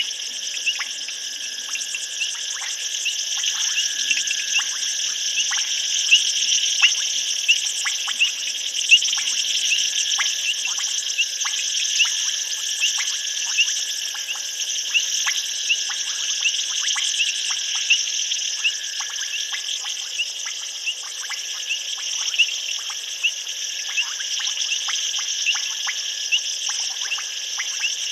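Night chorus of crickets and other insects: a steady high-pitched trilling, with many short, sharp chirps and clicks about two a second on top.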